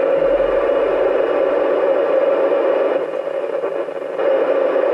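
Steady FM static hissing from a ham radio transceiver's speaker while receiving the ISS voice repeater downlink, with no one talking through it.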